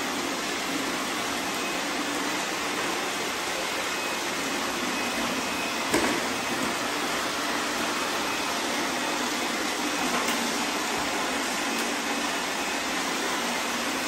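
Several robot vacuums (iRobot Roombas, a Shark, a Eufy, an iLife and others) running together, sweeping up confetti from a tile floor: a steady whir of motors and brushes, with a single short knock about six seconds in.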